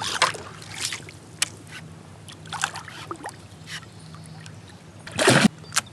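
Splashing and knocks on a kayak as a hooked pike is played alongside, a string of short splashes and clicks with one loud splash about five seconds in.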